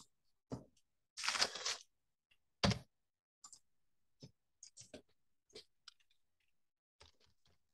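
Computer keyboard keystrokes and clicks, scattered single taps while text is typed and edited, with a louder burst of noise lasting under a second about a second in.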